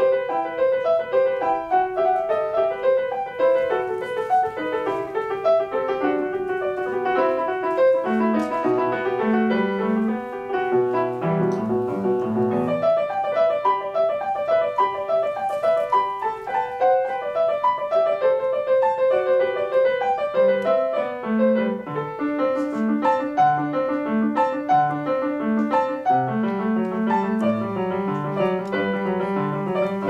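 Grand piano played solo: a continuous passage of many notes, a melody line over lower accompanying notes.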